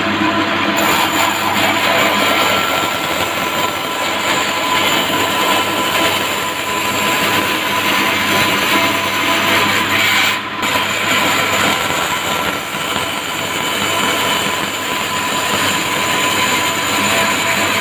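Bandsaw running with its blade cutting lengthwise through a thick wooden block: a loud, steady rasp of blade through wood. The higher hiss of the cut comes in about a second in, and the sound dips for a moment about ten seconds in.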